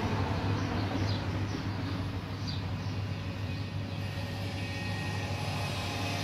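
Steady low mechanical hum from a Brunimat milk vending machine as it dispenses fresh milk into a plastic bottle.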